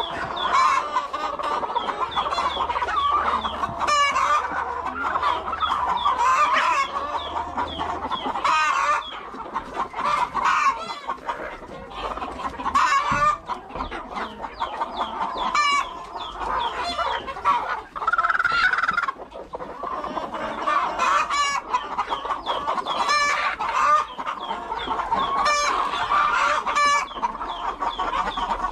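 A flock of hens clucking continuously, many birds calling over one another.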